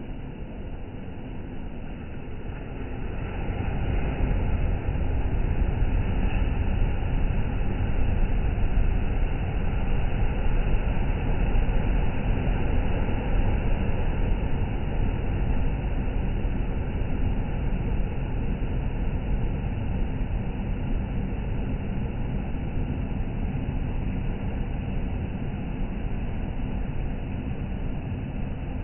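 Steady rushing of sea surf and wind, heavy in the bass. It swells a few seconds in, then eases slowly.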